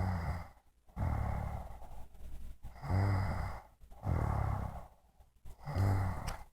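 A woman snoring in her sleep: a low rattling snore on the in-breath, then a noisy out-breath, repeating in a steady rhythm with two snores about three seconds apart.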